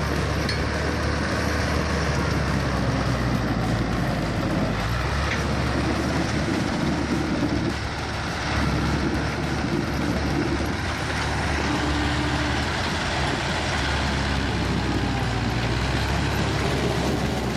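Heavy log truck's engine running under load, its low note shifting and dipping a few times.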